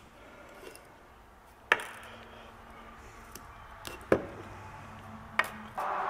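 Metal parts clinking and knocking as a brake caliper bracket and its slide pins are handled and set down on a steel workbench, with sharp knocks about two, four and five and a half seconds in. A steady hiss starts near the end.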